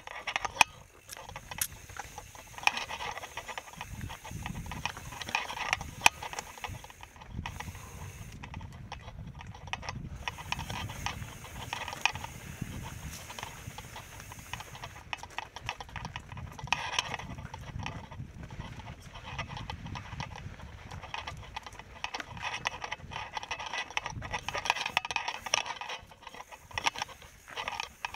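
Mountain bike riding down a rocky trail: the tyres knock and scrape over rock and the bike rattles, giving an irregular clatter of sharp knocks.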